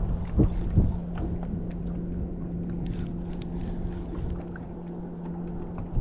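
A boat motor hums at a steady pitch, with a low rumble of wind on the microphone and two low thumps under a second in.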